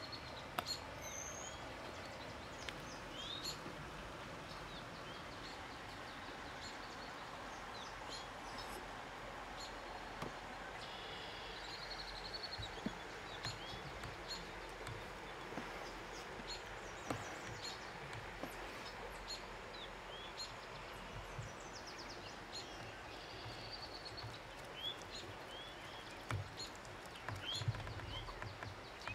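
Wild birds chirping and trilling over a steady outdoor background hiss, with a few soft knocks and taps scattered through.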